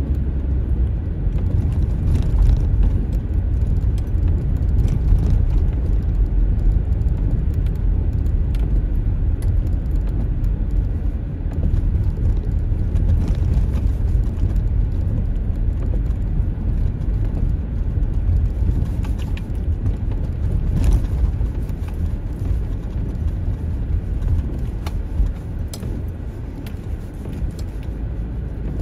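A car driving over a rough, rutted, icy snow-covered road, heard from inside the car: a steady low rumble of tyres and suspension with scattered short knocks and rattles as the car jolts over the bad surface. The rumble eases a little near the end.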